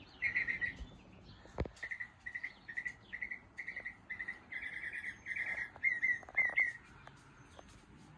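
A small songbird chirping: short chirps in quick clusters, repeated over and over, stopping about two-thirds of the way through. A single sharp click comes about a second and a half in.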